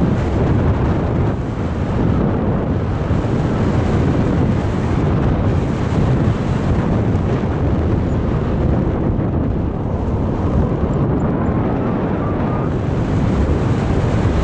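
Wind rushing over the camera microphone in paraglider flight: a loud, steady rumble of wind noise, heaviest in the low end.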